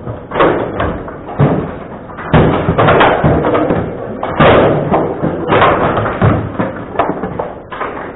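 Table football being played: the ball struck hard by the rod-mounted figures and banging off the table's walls and goal, as irregular sharp knocks and slams, the loudest a little over two seconds in and about four and a half seconds in.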